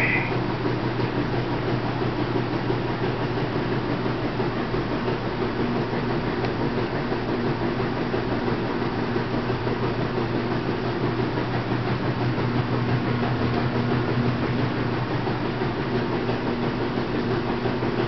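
A steady low mechanical hum with hiss, unchanging, with no calls or other events.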